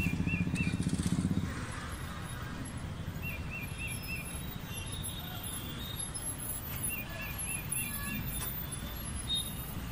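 Roadside street ambience: a steady low traffic hum, with a bird calling in three short runs of three or four quick rising-and-falling chirps. A loud low pulsing sound, like an engine running close by, stops about a second and a half in.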